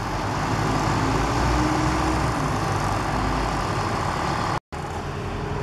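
Steady background rumble like distant traffic or engines, with a faint low hum during the first few seconds. The sound drops out completely for a split second about four and a half seconds in.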